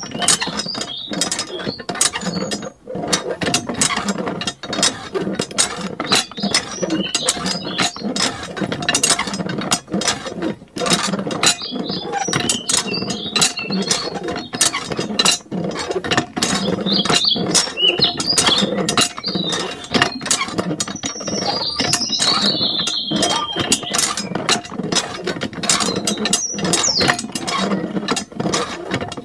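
Small water pump inside a miniature model hand pump, running with a fast, irregular rattling clatter over a faint steady whine, as it drives a continuous stream of water out of the spout.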